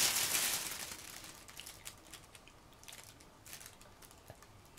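Thin plastic vaporizer balloon bag crinkling as it is handled and set down, loud at first and fading within about a second, then only a few faint scattered crinkles and clicks.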